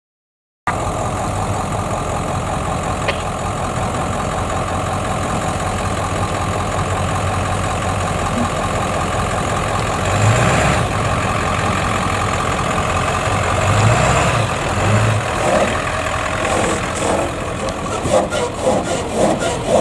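Truck engines running steadily at idle as a pickup brush truck drives slowly by and pulls onto the grass, with a few short rattles near the end.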